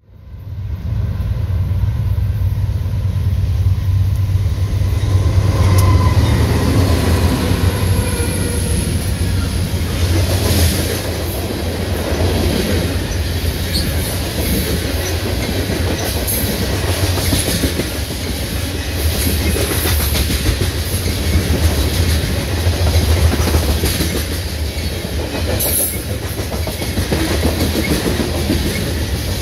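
Freight train of covered hopper cars passing at close range: a steady, loud rumble of rolling steel wheels with irregular clickety-clack over the rail joints. The sound fades in over the first second, and a faint thin whine of wheel squeal shows a few seconds in.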